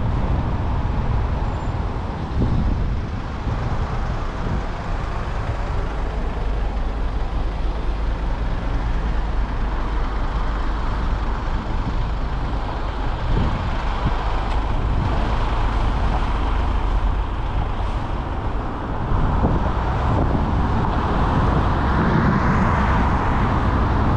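A car driving along the road: a steady low rumble of road and tyre noise with wind buffeting the microphone. A louder hiss builds over the last few seconds.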